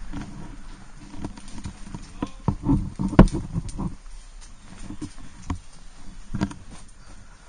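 Irregular footstep-like thuds and clicks from a player moving on the ground, with one sharp crack about three seconds in.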